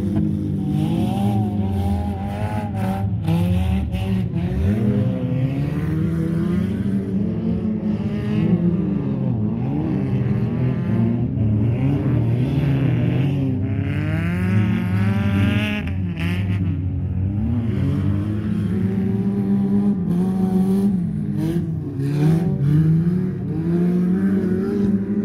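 Several beaten-up wreck-race cars being driven hard on a muddy dirt track. Their engines rev up and down again and again, overlapping one another.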